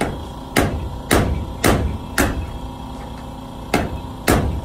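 Background music with heavy, evenly spaced drum hits, about two a second, pausing for a beat or two midway, over a steady sustained pad.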